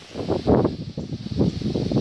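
Wind buffeting the microphone outdoors: irregular, gusty rumbling and rustling, loudest about half a second in.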